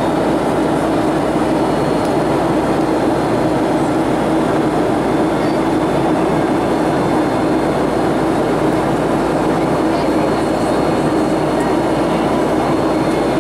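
Steady cabin roar of a Boeing 757-300 in flight, with engine and airflow noise heard from a window seat beside the engine and a steady low hum running through it.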